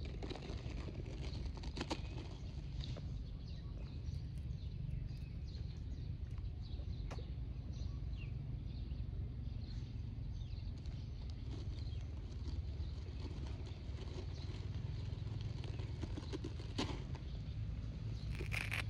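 Outdoor background noise: a steady low rumble with scattered faint ticks, and a brief brighter sound near the end.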